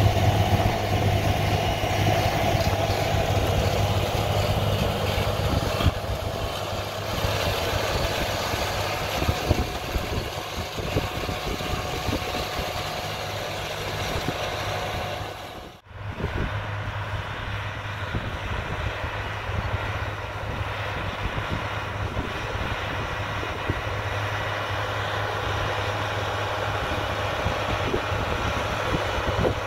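Agco Allis 9785 tractor's diesel engine running steadily under load with a low, even hum. About halfway through the sound cuts out for a moment and then resumes.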